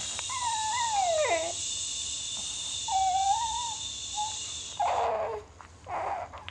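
Newborn baby fussing with thin, high-pitched whimpers: one slides down in pitch about a second in, and a shorter, steadier one follows about three seconds in. It is a fussy sound that the parents take for hunger, saying he might be hungry again.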